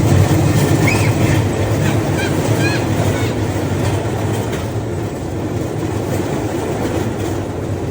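Steady rumble of a rail bike's steel wheels rolling along railway track, with a few brief high chirps over it in the first few seconds.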